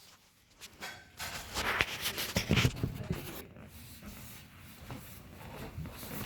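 A man's loud, sudden sneeze about two seconds in, followed by quieter movement and rustling.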